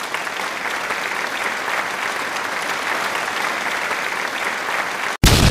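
Steady applause from a crowd, dense hand-clapping without a beat. It breaks off suddenly about five seconds in, and a loud deep boom hits.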